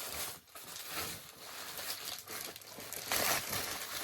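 Bubble wrap being pulled out of a shipping box and handled, a continuous crinkling and rustling that swells about three seconds in.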